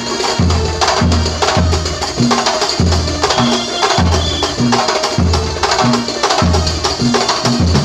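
Kuntulan ensemble of terbang frame drums playing live: sharp slaps interlocking over deep drum strokes that repeat roughly twice a second, in a steady driving rhythm.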